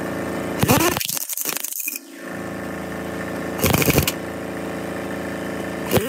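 An engine running steadily, with two short spells of rapid metallic clattering, about a second in and again near four seconds.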